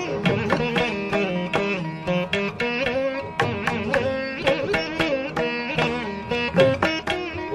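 Indian classical instrumental music on a plucked string instrument, quick plucked notes bending up and down in pitch over a steady drone.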